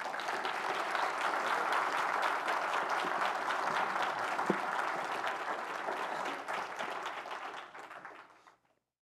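Congregation applauding, many hands clapping steadily, then fading away and cutting off about eight and a half seconds in.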